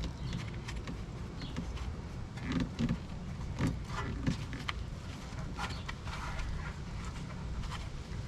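Small metal parts and hand tools clinking and scraping while a front wheel hub is being taken apart, over a steady low rumble.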